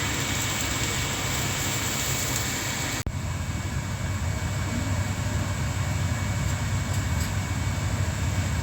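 Stuffed tofu fritters deep-frying in hot oil: a steady sizzle over a low rumble. It drops out for an instant about three seconds in.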